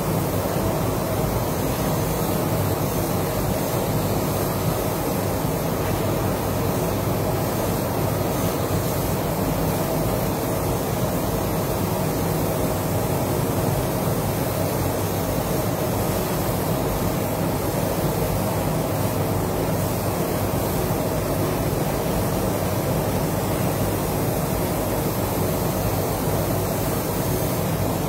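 Air spray gun hissing steadily as it sprays paint onto a car panel, over the steady rush of the paint booth's ventilation.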